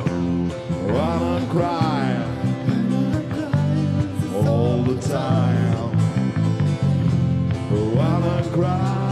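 Live band playing: a male singer's sung phrases come in three times over an electric bass line and strummed acoustic guitar.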